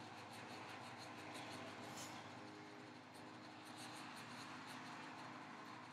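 Near silence: faint room tone with a steady low hum and light hiss.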